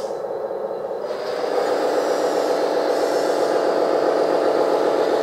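1/14 RC wheeled hydraulic excavator driving in reverse: its drive motor and gearbox running steadily, getting louder about a second and a half in as it picks up speed.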